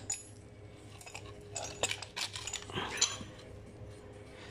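Scattered light metallic clinks and knocks of heavy steel parts being handled and set in place for pressing in a bushing, a few short strikes with a brief ring.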